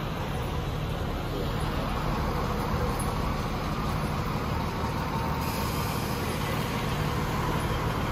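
Diesel engines of stopped fire trucks running on the street, a steady low rumble, with a hiss joining about five seconds in.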